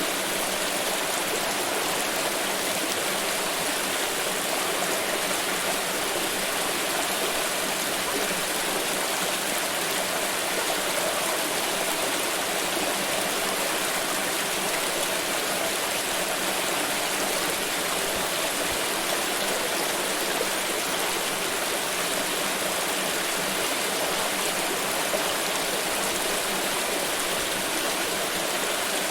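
Water flowing steadily in a stream, a constant rushing with no change in level.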